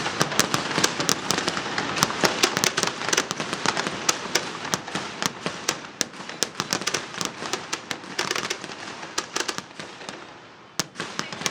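Fireworks going off in a dense run of sharp cracks and pops, several a second. They thin out toward the end, then a brief lull is broken by a single loud crack.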